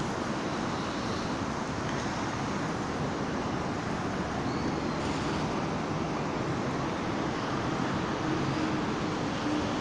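Steady outdoor background noise, an even hum and hiss like distant traffic, with a faint short high chirp about halfway through.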